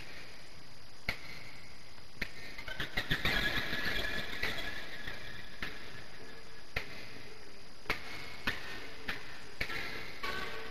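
Steady cassette tape hiss with scattered sharp clicks. About three seconds in there is a brief cluster of faint, indistinct higher sounds.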